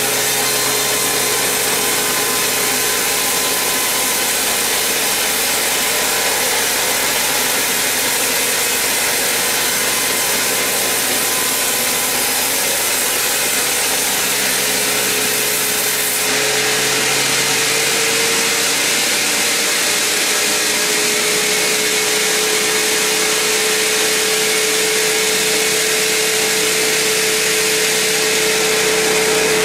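Sawmill band saw cutting lengthwise through a huge mahogany log: a steady, loud sawing noise with a constant machine hum under it. About two-thirds of the way through, the hum shifts slightly higher and the deep drone drops away.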